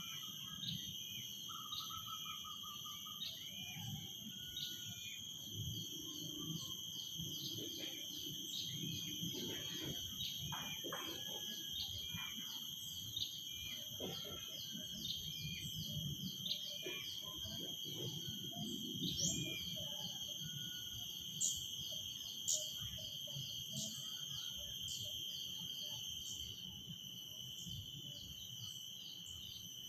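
Cicadas droning in a steady, high-pitched chorus with a fast run of repeated chirps on top, while birds give short scattered calls.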